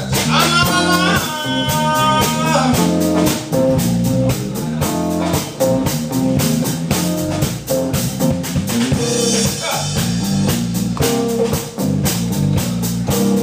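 Live electric blues trio in an instrumental passage: a lead electric guitar over bass and a steady drum beat. Near the start the guitar plays a high note that bends up, is held, then drops away.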